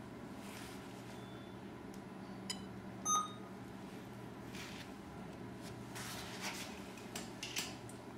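A single short electronic beep from a Toyota Intelligent Tester 2 hand-held scan tool about three seconds in, just after a light tap, confirming a menu selection as the tool starts auto-detecting the vehicle's systems. A faint steady hum runs underneath.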